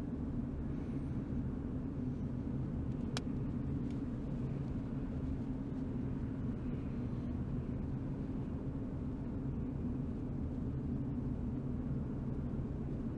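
Car driving at steady speed: constant engine and road rumble, with a single sharp click about three seconds in.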